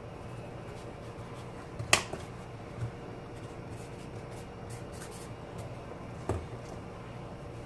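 Sharp clicks of drawing tools being handled and set down on the drawing surface: a loud one about two seconds in, a softer one just after, and another near six seconds, over a steady low hum.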